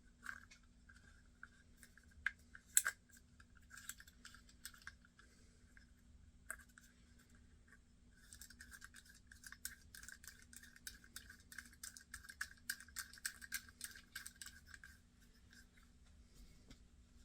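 Fishing reel's ratchet, faint rapid light clicking as the reel is worked. The clicks come in a few short spells at first, then run densely for several seconds in the second half before stopping.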